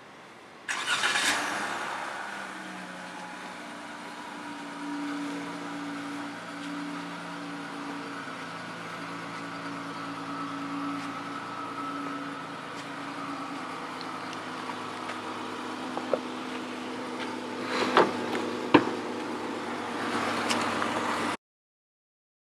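A 2019 Dodge Charger SXT's V6 engine starts with a brief rise in revs and settles into a steady idle. A couple of sharp clicks come near the end, and the sound cuts off suddenly.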